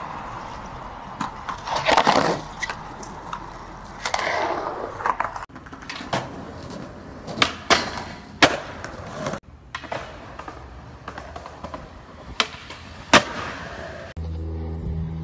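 Skateboard tricks on street handrails: the board scraping along a metal rail, wheels rolling on concrete, and several sharp pops and slaps of the board on take-off and landing.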